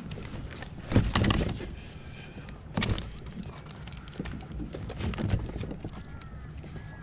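Knocks and thumps on a kayak as gear and the catch are handled, loudest about a second in and again just before three seconds.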